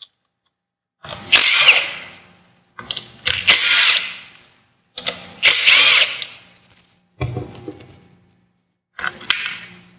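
Power drill with a socket spinning out the 12 mm bolts that hold a Prius hybrid battery plate, run in about five short bursts of a second or two each, its motor pitch rising and falling within each burst.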